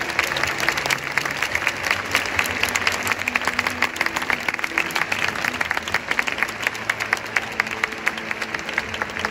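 A stadium crowd of football supporters applauding, with dense, sharp hand claps close by, over faint background music.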